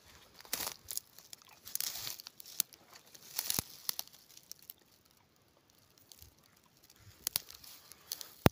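Footsteps crunching through dry leaf litter and undergrowth, with several sharp twig snaps and a pause of about two seconds in the middle.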